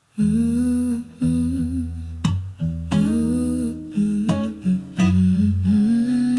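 Intro of a slow acoustic R&B ballad: a wordless hummed vocal line over plucked acoustic guitar.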